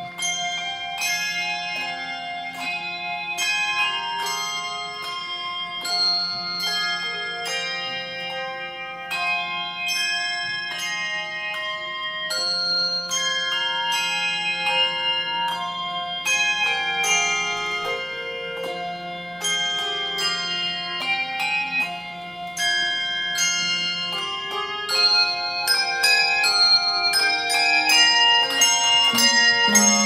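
Handbell choir playing a piece, many bells struck in succession and together, each note ringing on. The music grows louder over the last few seconds.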